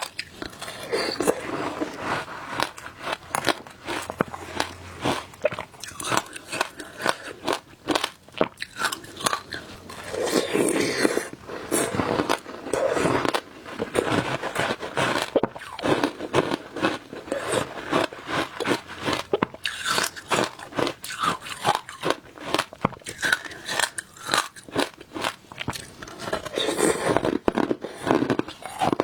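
Frozen passion fruit ice and shaved ice being bitten and chewed close to the microphone: a continuous run of crisp, irregular crunches.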